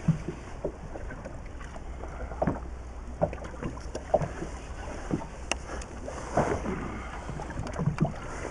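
Water slapping irregularly against the hull of a small inflatable boat, over a steady low rumble of wind on the microphone.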